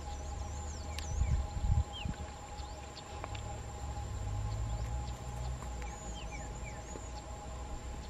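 Rural field ambience: a low rumble under a steady faint whine, with scattered short faint bird chirps. A few dull low thumps sound between about one and two seconds in.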